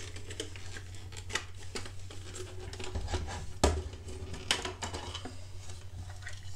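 Hard plastic parts of a toy compactor model clicking and knocking together as they are handled and fitted. There are scattered taps, the sharpest about three and a half seconds in, over a low steady hum.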